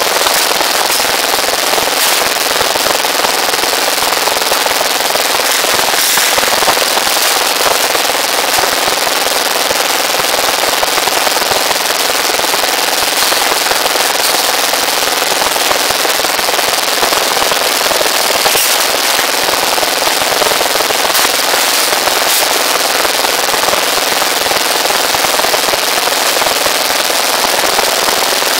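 Small engine driving a rebar bending machine, running steadily at speed with a dense, rapid rattle.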